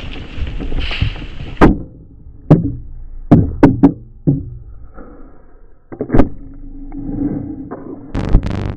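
A series of about seven sharp knocks at uneven spacing, three of them in quick succession near the middle, over a quieter rumbling noise.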